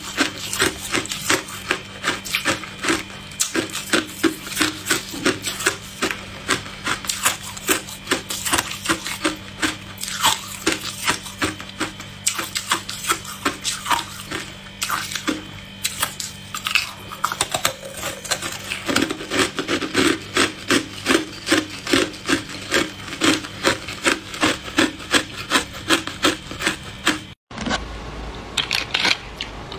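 Hard clear ice being chewed and crunched between the teeth, a steady run of sharp, brittle crunches, about three a second. The sound breaks off for a moment near the end.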